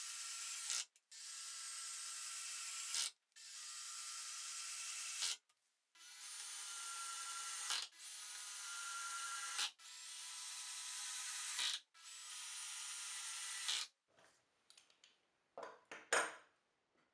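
Makita 18V cordless drill-driver driving wood screws into plywood one after another: about seven runs of about two seconds each, the motor whine and screw grinding growing and cutting off sharply as each screw head seats. Then a few light knocks of a clamp being handled, one louder near the end.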